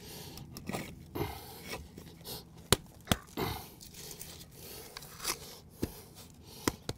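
Piece of concrete slab scraping and grating over limestone screenings as it is slid and bedded into place, with a few sharp clicks of stone and grit.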